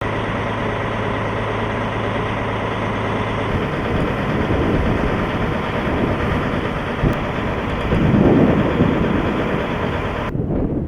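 Freight truck diesel engines idling, with a steady low hum at first that gives way to a rougher, uneven rumble; the sound changes abruptly near the end.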